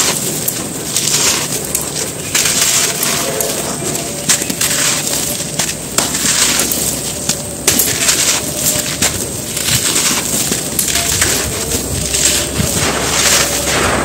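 Hands crushing chunks of dry red dirt and letting the crumbs pour onto the pile: a gritty, crispy crunching and trickling in repeated irregular bursts.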